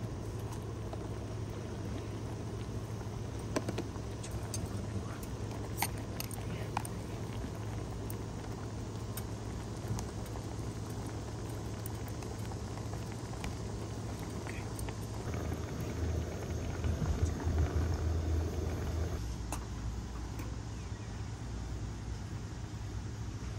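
A steady low mechanical hum with a rumbling haze beneath it and a few small clicks. A louder low rumble swells about two-thirds of the way in and drops away a few seconds later.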